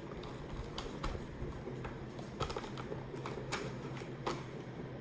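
Scattered light clicks and rustles of helmet padding being pushed into the shell by hand.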